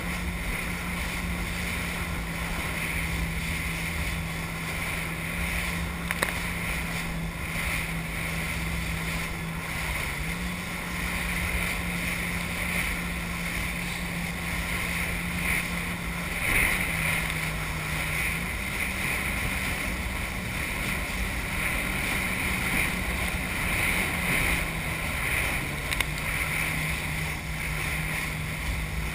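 Jet ski engine running steadily under way, its pitch dropping slightly a few times, about a third of the way in, past the middle, and near the end. The rush of water spray and wind hiss runs over it.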